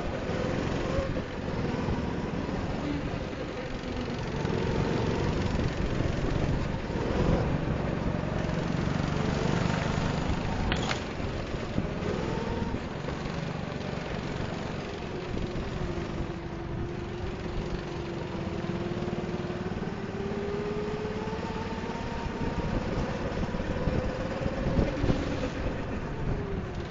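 Go-kart engine heard from the kart's onboard camera, its pitch rising and falling with the throttle through the corners. There is a sharp click about eleven seconds in.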